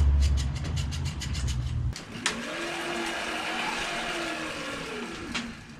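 Bicycle wheel spinning in a repair stand with a rag pressed against the tyre: a low whirring rub with rapid, even ticking. About two seconds in the rubbing stops suddenly, with a click, and the wheel spins on freely with a fainter whir.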